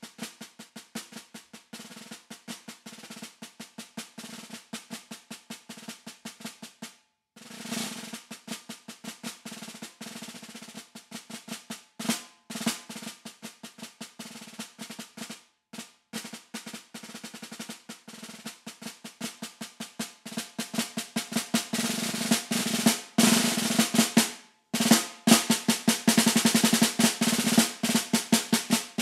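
Concert snare drum played solo with sticks, snares on: rapid strokes and rolls, soft at first with a few short breaks, growing clearly louder in the last third.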